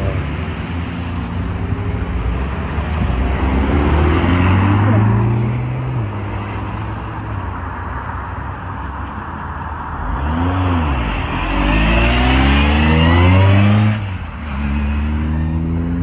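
Car engines revving and accelerating away as cars leave a car meet, pitch climbing through the gears. About ten seconds in, one engine gives a quick rev up and back down. The loudest pull follows and cuts off sharply about fourteen seconds in.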